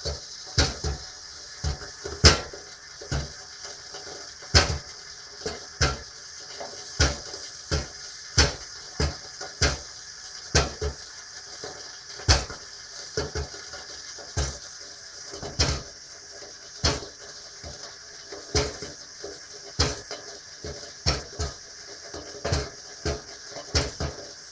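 A kettle heating water gives sharp metallic knocks, about one a second at uneven spacing, over a steady high hiss.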